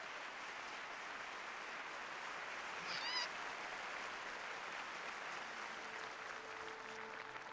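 Steady rushing noise like applause, with a short wavering high-pitched cry about three seconds in. A steady held note begins about six seconds in.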